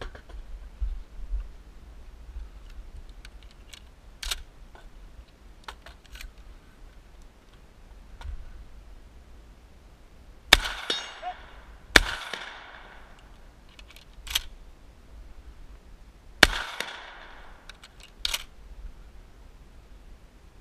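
Shotgun shots, loud and echoing, with lighter clicks and clacks of the gun being handled and loaded. After about ten seconds of handling, two shots come a second and a half apart, a third follows about four seconds later, and a fourth comes right at the end.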